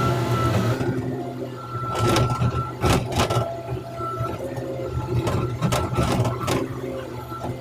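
Komatsu excavator running with a steady engine drone and a high hydraulic whine, its bucket scraping and knocking on the road surface about six times.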